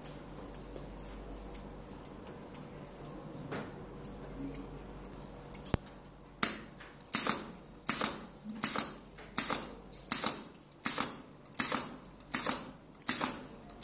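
Relays on a PLC trainer board clicking as the program blinks the tower-light lamps in sequence. A faint regular ticking gives way, about six seconds in, to loud sharp clicks, often in close pairs, about one to two a second, each with a short ringing tail.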